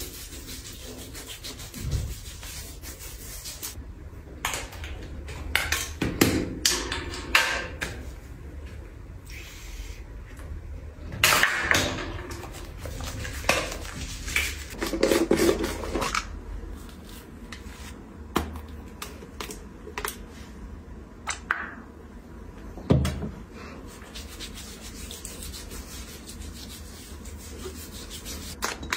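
A hand rubbing gritty exfoliating body scrub over a wet forearm: irregular rubbing and scraping strokes, busiest in the first half, with fewer and sparser strokes later on.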